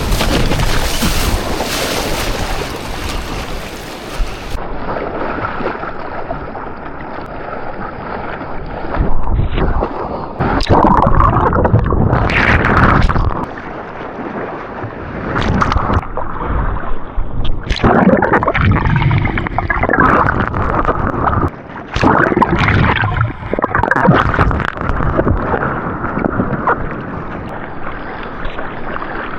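Seawater sloshing and splashing around a GoPro camera in the surf, with wind buffeting the microphone. The noise swells and falls unevenly, with several louder splashes.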